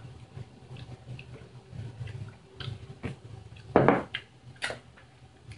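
Chewing a sauced chip, soft and wet, with small clicks. A sharp knock about two-thirds through.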